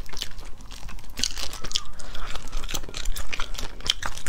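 Cooked crayfish shells cracking and snapping as they are pulled apart by hand, close to the microphone: a quick run of irregular crisp crackles.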